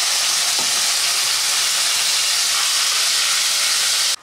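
Ginger and green chilli paste frying in hot oil in a kadai with cumin seeds and bay leaves: a loud, steady sizzle that cuts off suddenly at the end.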